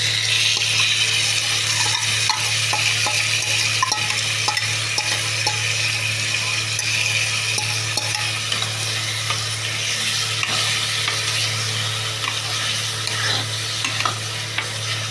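Food sizzling as it fries in a hot pan, with scattered light clicks of a spoon stirring it. The sizzle starts suddenly and slowly eases off.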